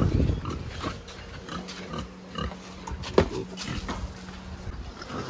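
Pigs grunting in short, scattered grunts, with one sharp knock about three seconds in.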